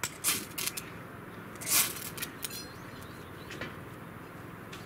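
Ferrocerium fire-starter rod struck with a scraper over a pile of wood shavings, several short rasping scrapes to throw sparks into the tinder; the loudest and longest scrape comes a little under two seconds in.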